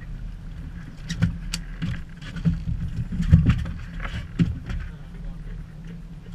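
Boat engine running with a steady low hum, under a run of irregular heavy thumps and knocks from about a second in until near the end.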